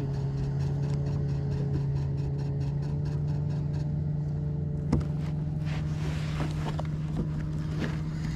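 Steady low motor hum, with a light rapid ticking of about five a second over the first four seconds and a single knock about five seconds in.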